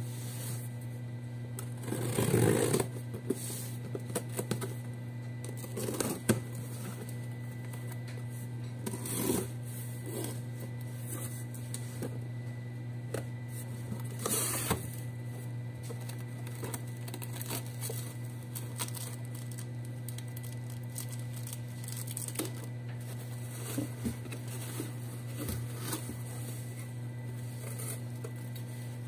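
Cardboard shipping box being handled and opened by hand: scattered rustles, scrapes and taps of the box, its tape and flaps. The loudest bursts come about two, six, nine and fourteen seconds in, and a fabric bag is rustled near the end. A steady low hum runs underneath.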